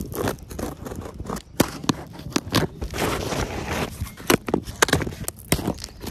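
Key scraping along the seam of a cardboard box, slitting the plastic packing tape: irregular scratching and crackling of tape and cardboard with many sharp clicks.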